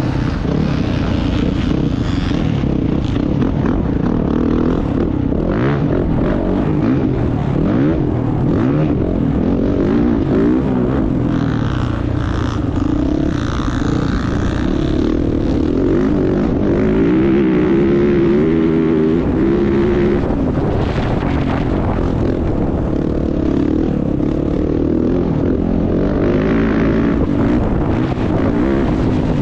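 Off-road racing motorcycle engine running hard, its note rising and falling over and over as the rider throttles and shifts, with a steady rushing noise over it.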